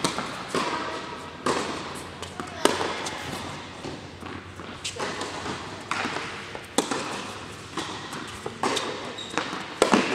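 Tennis balls struck by rackets and bouncing on a hard indoor court: an irregular series of sharp pops, about one a second, each echoing in the large hall.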